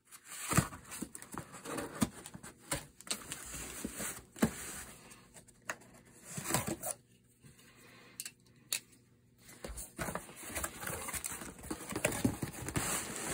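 A cardboard shipping box being opened by hand: scattered scrapes and taps as the packing tape along the seams is cut, a short pause, then denser cardboard rustling over the last few seconds as the flaps are pulled open.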